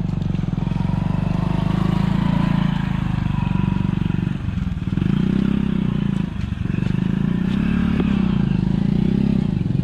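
Motorcycle engine running while riding, the throttle easing off briefly twice, about four and a half and six and a half seconds in, with the engine note rising and falling in between.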